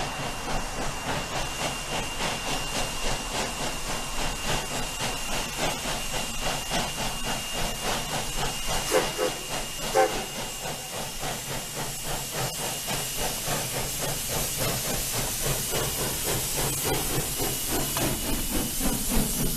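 1896 Cooke 4-6-0 steam locomotive GVRR 2248 working toward the listener: a fast, steady rhythm of exhaust chuffs with hissing steam, growing a little louder near the end as it draws close. About nine seconds in, two short whistle notes sound about a second apart.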